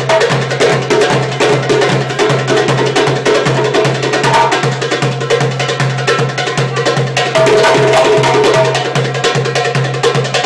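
A busking percussion group playing a fast batuque drum rhythm: dense, quick strokes over a steady low drum pulse.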